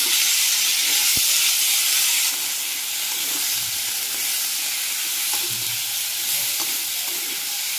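Chopped raw potatoes sizzling in hot oil and frying spice masala in a wok-style pan while a metal spatula stirs them through, with a few faint scrapes of the spatula. The sizzle is strongest for the first two seconds, just after the potatoes go in, then eases a little.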